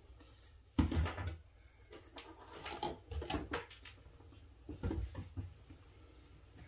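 Plastic paint bottles being picked up and set down on a plastic-covered table: a handful of irregular knocks and clunks, the loudest about a second in.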